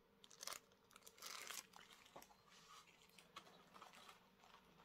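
Faint crinkling and rustling of plastic packaging being handled, in a few short bursts with scattered light clicks.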